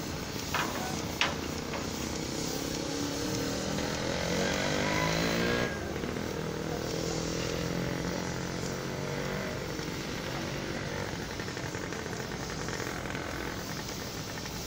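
Steady drone of a cargo ship's engine. A small engine revs up, rising in pitch for about three seconds, and cuts off about six seconds in. Two sharp clicks come near the start.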